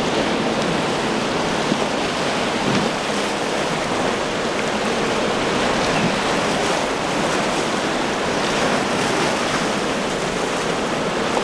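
Steady rush of surf and breaking waves, with wind buffeting the microphone.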